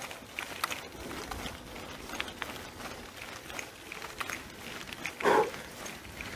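Bicycle rolling along a rough dirt woodland path, with many light clicks and rattles from the tyres and frame over the uneven ground. About five seconds in there is one short, loud sound that falls in pitch.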